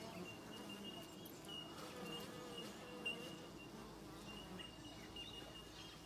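A colony of bees buzzing at their nest in a hollow tree trunk, the hum wavering in pitch as single bees fly close past. A thin, steady high tone runs behind it, with one short click about halfway through.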